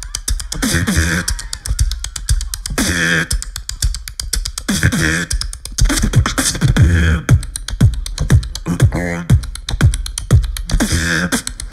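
Beatboxing amplified through a handheld microphone: a fast run of sharp mouth-percussion hits with deep bass tones that slide down in pitch.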